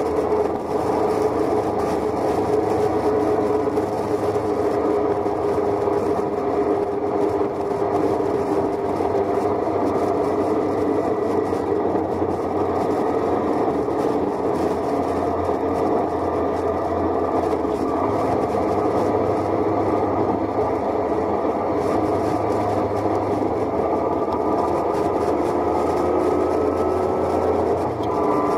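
Motorcycle engine running steadily at cruising speed, heard from the bike itself, its pitch holding nearly constant.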